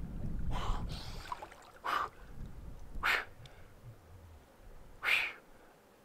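A man's sharp, forced breaths, four in all about a second or two apart, as he lowers himself into icy lake water: cold-shock breathing. A low rumble sits under the first breath or so.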